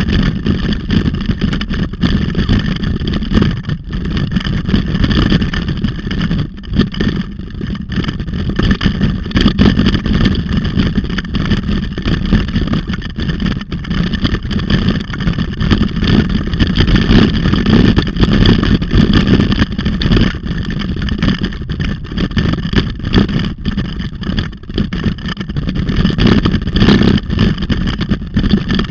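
Loud, steady rumble of wind buffeting and trail vibration on a handlebar-mounted camera's microphone during a fast ride along a dirt forest track.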